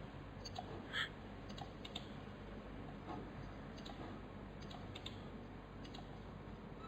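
Faint, scattered clicks of a computer mouse and keyboard at irregular intervals, one a little louder about a second in, over a low steady hiss.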